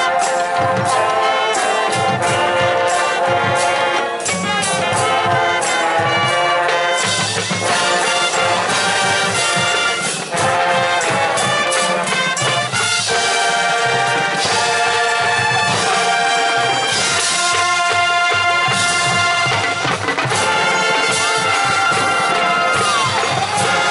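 High school marching band playing: brass instruments with many sharp percussion hits.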